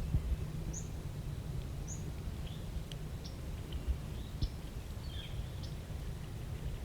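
Small songbirds chirping, scattered short high notes every second or so, over a steady low rumble on the microphone.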